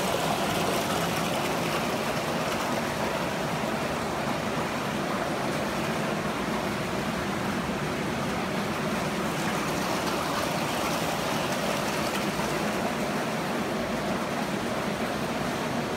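Steady rushing of running water from aquarium filtration and plumbing, without a break.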